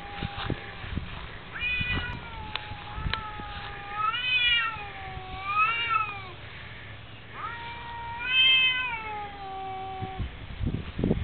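Two tomcats yowling at each other in a territorial standoff: long, drawn-out calls that waver up and down in pitch, one voice overlapping a lower, steadier one, in two long bouts with a short break between them.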